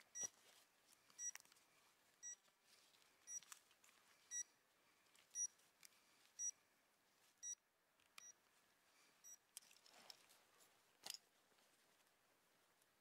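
An electronic device beeping: a short, high beep repeating about once a second, stopping about two-thirds of the way through, followed by a couple of faint clicks.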